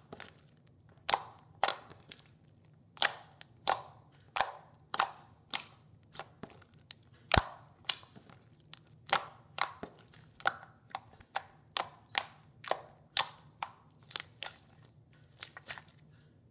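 Glossy slime being poked and pressed with fingers, giving a quick irregular run of sharp pops and clicks, about two a second, as trapped air pockets burst.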